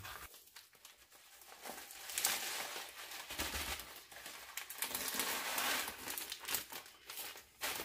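Vacuum-sealed plastic bag crinkling and crackling as it is handled and opened. It starts about a second and a half in.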